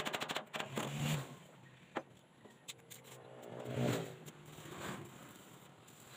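Arc-welding crackle that cuts off about half a second in, then the engine of a passing motor vehicle, loudest a little before four seconds in, its pitch falling as it goes by, with a few metal knocks between.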